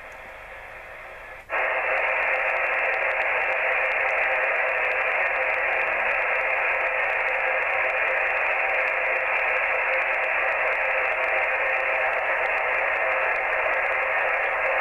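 Yaesu FT-857D receiver's speaker hissing with 80 m band noise on 3.605 MHz LSB: a steady, loud rushing hiss that cuts in suddenly about a second and a half in, after a faint hiss from the quiet 20 m band. The noise holds the S-meter at S7 to S8, which the owner calls pretty awful and says makes the band unusable for all but very strong stations.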